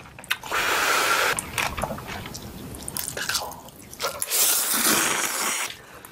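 A person slurping instant ramyeon noodles off a fork, with two long slurps, one about half a second in and one about four seconds in, and chewing and lip-smacking between them.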